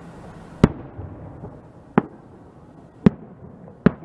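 Fireworks bursting: four sharp bangs about a second apart, each dying away quickly.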